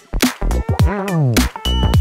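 Upbeat electronic background music with a steady drum-machine beat and sliding synth notes.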